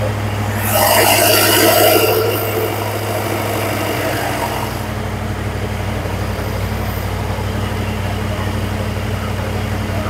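Holley Sniper EFI–equipped truck engine idling steadily at operating temperature while its idle air is being set. About a second in, a louder hissing, rushing sound rises over the idle for about a second and a half, then fades.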